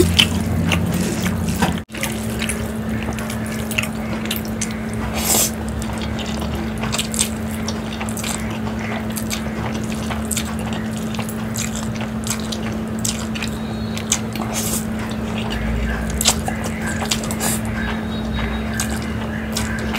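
Close-up wet eating sounds of a person slurping and chewing instant noodles, with many small lip-smacking clicks over a steady low hum. The sound drops out briefly about two seconds in.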